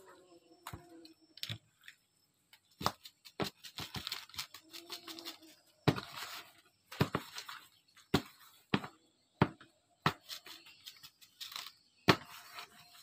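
Hands rubbing coarse salt into raw fish in a basin: irregular sharp knocks and taps as the fish are picked up and set down against the basin, with short scraping, rubbing sounds of the salt between them.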